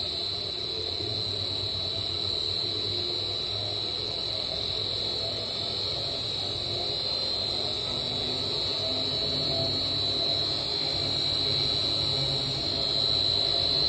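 Inverter-driven main motor of a double sigma (Z-blade) kneader mixer running its blades forward, a steady high whine over a low hum. The hum grows a little louder near the end as the speed is raised.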